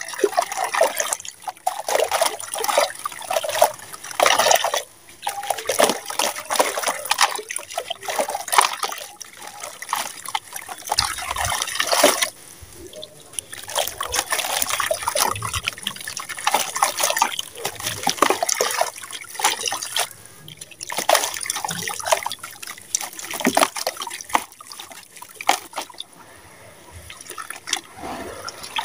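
Lumps of sand-cement crumbling from the hands into a tub of water: grains and chunks trickling and splashing into the water, then hands squishing and sloshing the wet slurry, in uneven spells with short lulls.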